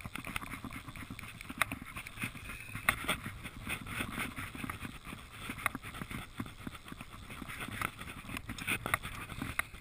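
Wooden fly reel wound by hand, its click mechanism giving a continuous run of irregular clicks as line is reeled in.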